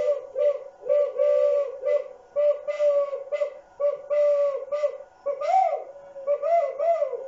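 Homemade flute of stacked CDs and a cardboard toilet-paper tube, blown with the tube fully covered to give its lowest note. It plays a run of short, breathy hooting notes on one low pitch, imitating a turtle dove's cooing. Several notes bend up and down near the end.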